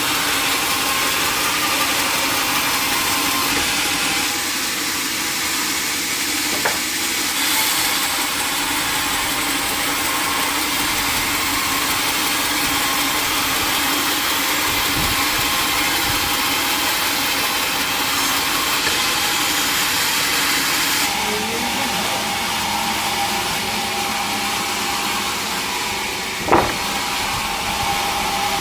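Sawmill machinery running steadily, a dense mechanical noise with faint steady hum tones underneath. There are two sharp knocks, a small one early and a louder one near the end.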